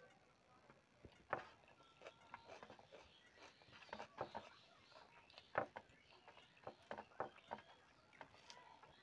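Close-miked eating sounds: chewing and short wet mouth smacks and clicks at an uneven pace, with a few louder ones, while rice is mixed by hand on a metal plate.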